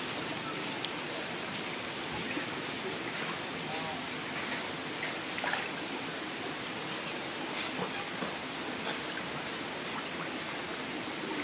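Steady rushing, splashing water in a pond as an animal swims through it, with a few small sharp splashes or drips, one about a second in and others around the middle and two-thirds of the way through.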